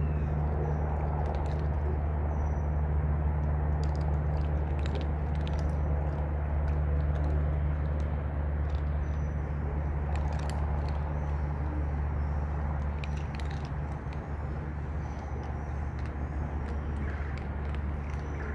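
A steady low machine hum, with scattered small crunching clicks of cats chewing dry food and a few faint bird chirps.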